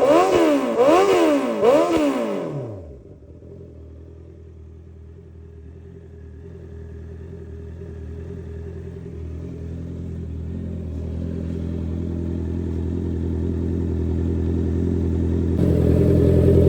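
Honda CBR650R inline-four engine being blipped, about two quick revs a second, for the first two seconds or so, then settling to a steady idle that slowly grows louder, with a step up in level near the end. The engine is running on freshly changed oil.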